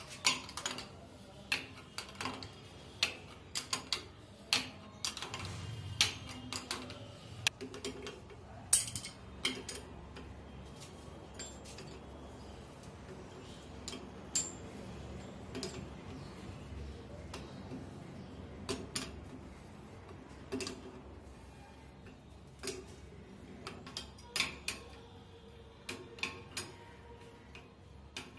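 Metal spanner clinking and clicking against the chrome fittings of a wall mixer as its nuts are tightened, in irregular sharp taps that come thick at first, thin out in the middle and pick up again near the end.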